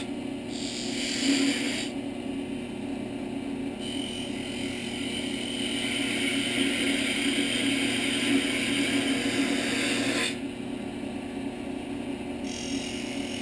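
Small wood lathe running with a steady motor hum while a turning tool cuts the spinning wooden roof blank. There is a short cut about half a second in and a longer one from about four seconds to ten seconds. The longer cut stops suddenly.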